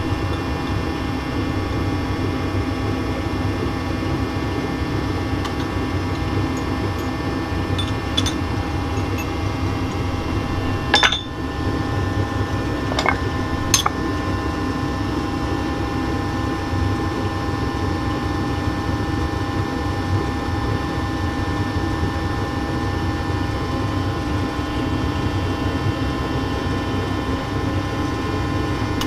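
Steady machine hum with several held tones, broken a few times near the middle by sharp metal clinks as the steel gravity die and its cores are worked and opened.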